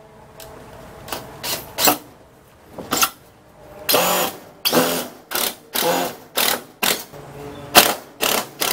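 Cordless drill driving wood screws into plywood in about a dozen short bursts of motor whine, some brief, some held for half a second or so.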